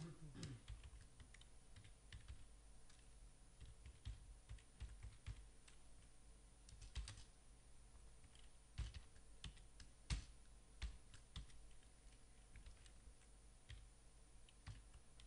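Faint, irregular typing on a computer keyboard: scattered keystrokes with short pauses, a few keys struck harder past the middle.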